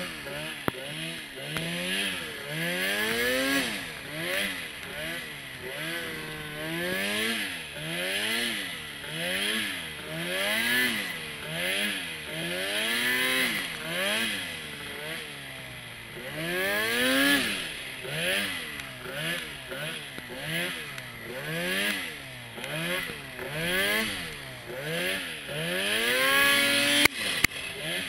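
Arctic Cat turbo snowmobile engine revving up and falling back about once a second as the throttle is blipped over and over, working through deep powder. A couple of sharp knocks come near the end.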